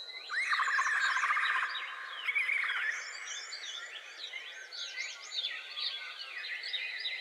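Forest birds singing: a loud, fast trill starts about a third of a second in and lasts over a second, followed by many short chirps and whistles. A steady high insect tone runs underneath.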